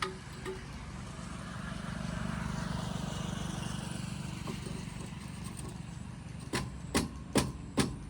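Four sharp knocks about 0.4 s apart near the end, the loudest sounds here, over a steady low rumble. In the first half a vehicle-like sound swells and fades.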